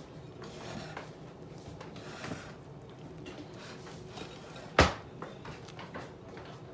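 A spatula stirring and scraping thick cake batter around a mixing bowl in repeated soft strokes, with one sharp knock about five seconds in.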